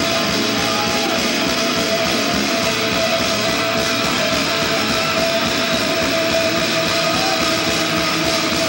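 Loud live rock band playing, with distorted electric guitars up front and a steady held tone running through.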